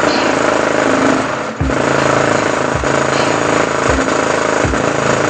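Small DIY mini subwoofer playing bass-boosted electronic music at high volume, heavily distorted and buzzing, with deep bass hits about once a second. The sound drops briefly about one and a half seconds in.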